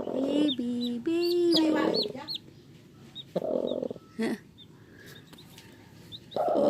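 Mother hen clucking in low, drawn-out calls while her chicks peep in high, short chirps.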